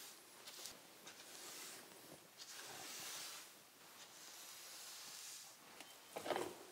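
Paint roller laying on a coat of paint in several soft, hissing strokes, with a louder short scrape near the end.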